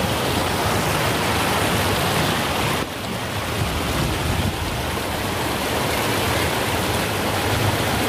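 Waterfall water rushing and splashing over rocks: a loud, steady rush of water noise that dips slightly about three seconds in.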